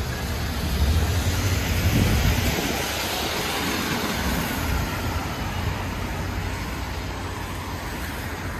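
An Iveco city bus passing at close range: a low engine rumble with tyre noise on the wet road, loudest for the first two or three seconds, then easing into steady traffic noise.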